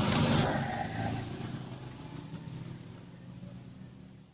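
A motor vehicle passing by: its engine swells to its loudest right at the start, then fades away over the next few seconds.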